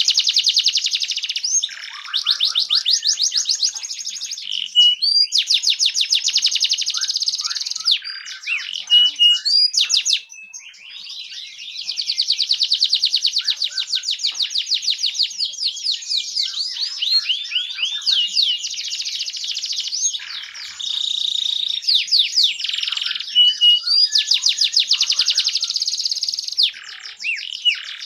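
Domestic canary singing a long, high-pitched song of rapid trills and rolls, each a fast run of repeated notes, with short breaks between phrases and a brief lull about ten seconds in.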